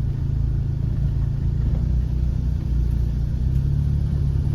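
Car engine running at low revs with a steady low rumble as the car creeps along a rough, rocky dirt track.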